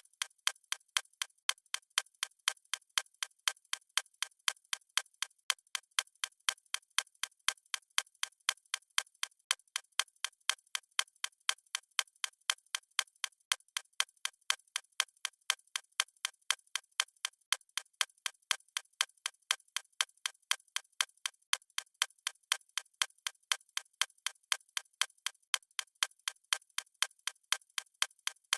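A watch ticking steadily: a rapid, even run of sharp, thin ticks with no change in pace.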